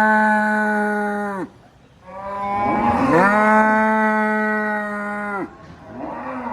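Cow mooing in long, drawn-out calls: one moo ends about a second and a half in, a second one rises in pitch and then holds steady for about three seconds, and a third begins near the end.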